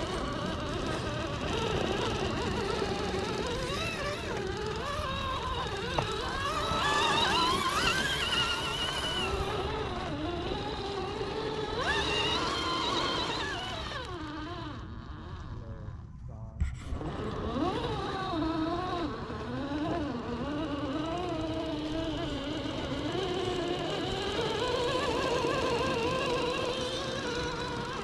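Axial SCX10 III RC crawler's brushed 540 motor and geared drivetrain whining under load, the pitch wavering up and down with the throttle as it crawls over rock. The whine drops out briefly a little past halfway, then picks up again.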